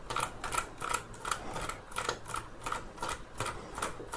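Screwdriver backing a loosened screw out of a Dyson V10 vacuum's plastic handle, giving a quick, even run of light clicks, about four a second.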